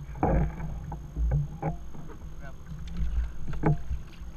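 Wind buffeting the kayak-mounted camera's microphone in low rumbling gusts, with a few knocks of gear against the kayak hull and a short muffled voice about a quarter second in.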